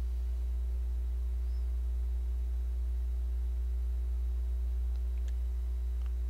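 A steady low hum with a few faint, steady higher tones above it, unchanging throughout; no other sound stands out.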